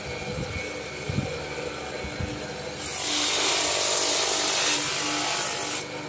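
Electric drum sander motor running steadily, with a loud gritty hiss from about three seconds in until shortly before the end as the bow limb is pressed against the spinning sanding sleeve. There are a few soft knocks in the quieter first part.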